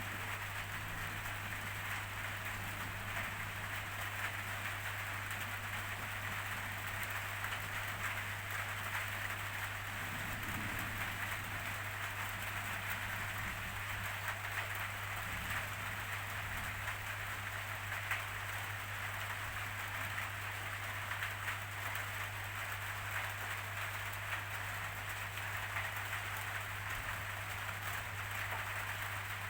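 Steady rainfall: an even hiss of rain with a fine patter of drops on surfaces, over a steady low hum.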